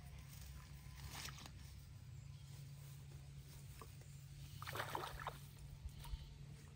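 Faint water sloshing and splashing at the pond's edge, with a louder splash about five seconds in, over a low steady rumble.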